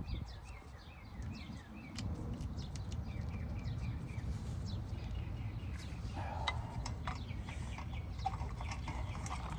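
Birds chirping in a quick series of short falling notes during the first second or two, over a steady low rumble, with scattered sharp clicks later on.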